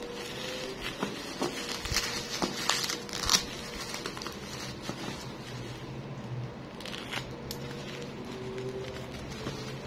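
Bubble wrap and plastic packaging crinkling and crackling as it is pierced and torn open with a ballpoint pen. The crackles are busiest from about two to three and a half seconds in, with one sharp snap near the middle.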